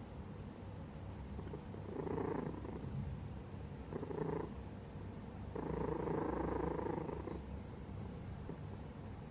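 Domestic cat purring steadily, with three louder swells about two, four and six seconds in.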